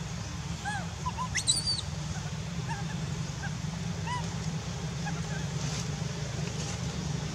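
Short chirping animal calls scattered throughout, with one sharp rising squeal about a second and a half in, over a steady low hum.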